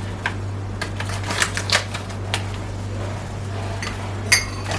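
A teaspoon clinking and tapping against a mug while a hot drink is made, in irregular light ticks with a sharper clink near the end. A steady low hum runs underneath.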